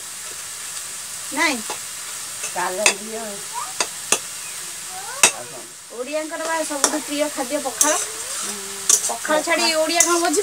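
Greens frying in a pan with a steady sizzle and occasional clicks. Several short voice-like sounds slide up and down in pitch over it.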